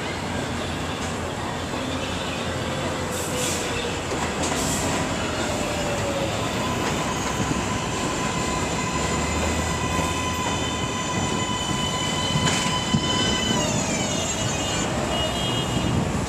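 New York City subway train running on the track, steel wheels squealing in several high steady tones over the rumble of the cars; about three-quarters of the way through the high tones glide downward.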